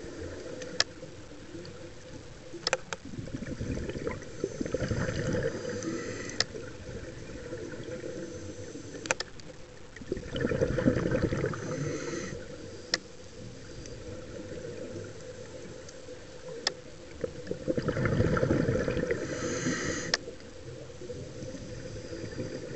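Scuba diver breathing through a regulator underwater: three gurgling rushes of exhaled bubbles, about seven seconds apart, with quieter stretches between. Scattered sharp single clicks sound every few seconds.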